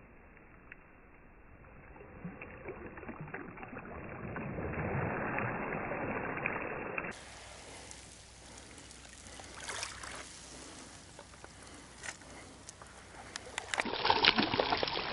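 Small waves washing up and drawing back over a pebble beach, swelling a few seconds in. Near the end comes a louder stretch of close crackling and clicking.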